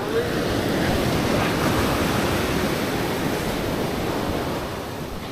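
Ocean surf breaking and washing up a sandy beach, a steady rush that swells slightly and then eases off toward the end.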